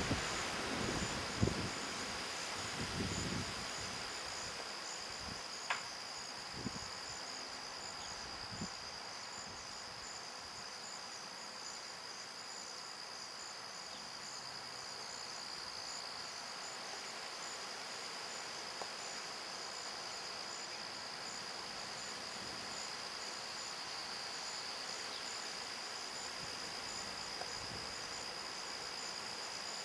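Field insects chirping steadily: a continuous high-pitched trill with a faster pulsing note above it. A few faint low knocks and clicks come in the first several seconds.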